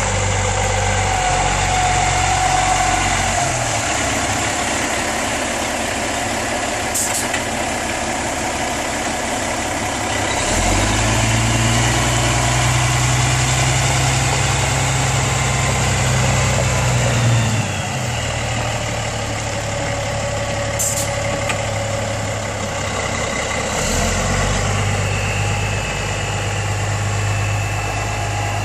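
Diesel engine of a 1999 Freightliner FL112 truck tractor running at idle, a steady note that steps higher for about seven seconds in the middle and then settles back.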